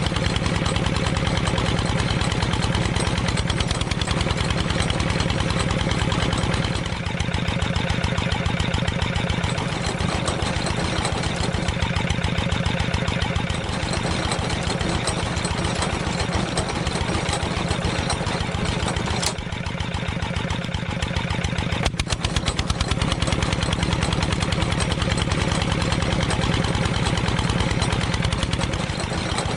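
Small engine running steadily with a fast, even firing rhythm, its note shifting slightly about seven seconds in.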